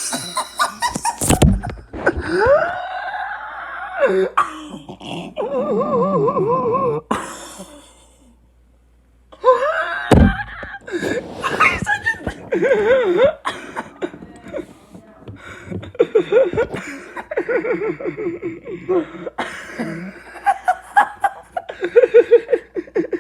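A child laughing uncontrollably in long, high, wavering peals broken by coughs and gasps, with a short pause about eight seconds in.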